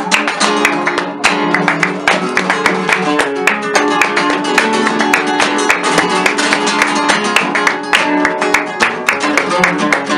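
Flamenco played on two acoustic Spanish guitars, with fast strummed and plucked passages, accompanied by rhythmic hand clapping (palmas).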